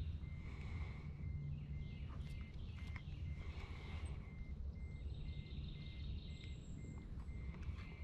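Outdoor creek ambience: a steady low rumble under a faint high pip that repeats evenly nearly three times a second, with scattered faint bird chirps.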